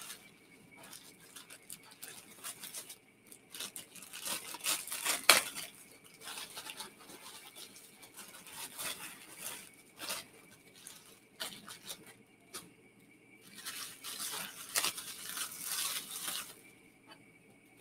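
A bottle and its wrapping being handled and unwrapped: irregular scratchy rustling and tearing in short bursts, with a few light clicks.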